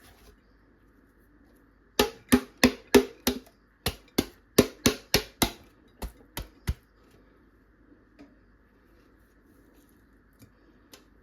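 A knife chopping on a cutting board: about fifteen sharp strokes, roughly three a second, starting about two seconds in and stopping before seven seconds.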